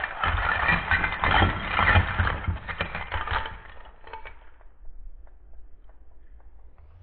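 Seashells poured from a wire-mesh shelling scoop onto a cloth-covered table, clattering against each other. The clatter thins out about three and a half seconds in to a few scattered clicks as the last shells settle.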